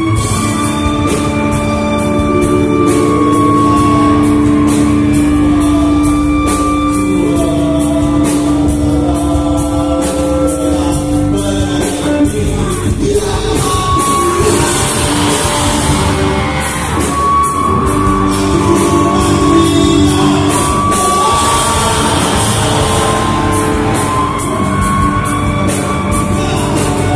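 Live rock band playing loudly in a large hall: drums, electric guitar and a singer.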